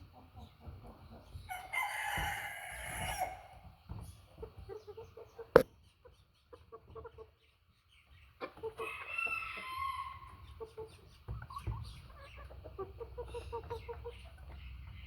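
White Buff heavy hens clucking in short runs, with two longer, louder calls about two seconds in and about eight and a half seconds in. A single sharp click about five and a half seconds in is the loudest sound.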